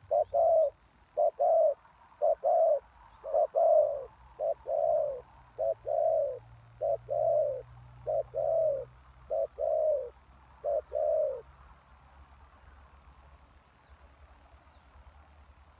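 Spotted dove cooing: a short note followed by a longer, falling coo, repeated about once a second, stopping about three-quarters of the way through.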